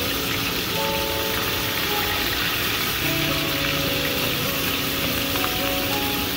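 Whole round scad (galunggong) frying in hot oil in a pan: a steady sizzle while the fish are turned over with metal tongs. Light background music with short held notes plays over it.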